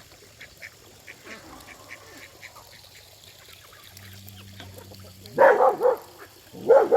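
Call ducks quacking softly in many short calls, then two loud honking calls about five and a half seconds in and right at the end.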